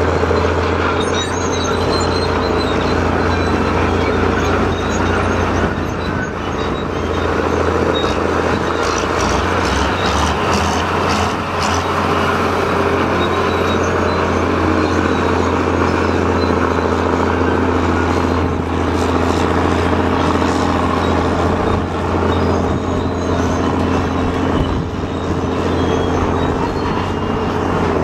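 Engine of a vintage wheeled tractor hauling a loaded dump wagon, running steadily under load with a constant low note, with other heavy earthmoving machines running at the same time.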